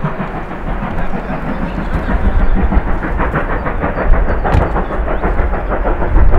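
Steam locomotive working hard, its exhaust beats coming fast and even over a deep rumble, growing louder toward the end as the train approaches.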